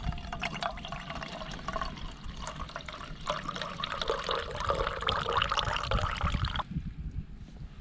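Water pouring and splashing, a steady crackly rush that cuts off suddenly near the end.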